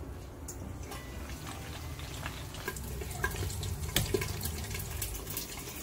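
Steel pot of vegetable stew simmering on the stove: a steady watery bubbling over a low hum, with scattered light clinks of a ladle and lid against the pot.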